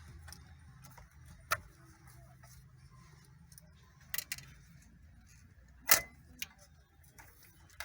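Scattered sharp clicks and knocks, half a dozen spread over several seconds with the loudest near six seconds in, from wiring connectors being unplugged from the back of a car radio head unit as it is pulled from the dashboard.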